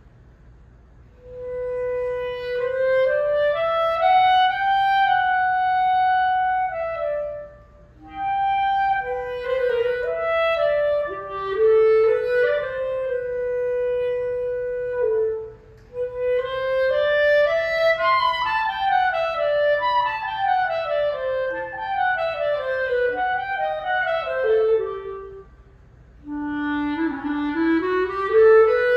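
Unaccompanied clarinet playing a slow Adagio etude: sustained, singing phrases broken by short breaths, with flurries of quick descending runs in the middle.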